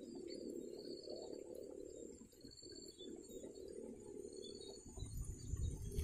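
A flock of munias (bondol) calling: short high chirps about once a second over a steady high-pitched drone. A low rumble comes in near the end.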